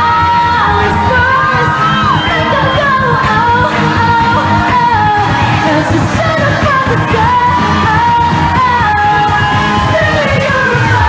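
Pop song playing loud, with a lead voice singing a flowing melody over full band accompaniment.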